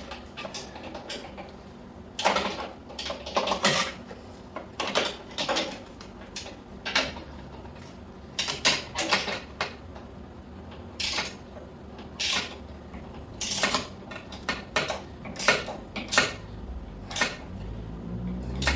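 Ratcheting combination wrench clicking in short runs as a bolt is tightened by hand, with metallic clinks of the tool against the parts.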